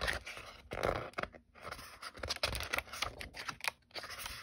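Sheets of cardstock in a paper pad being turned over and handled by hand: irregular rustling swishes of paper with many small sharp clicks and taps.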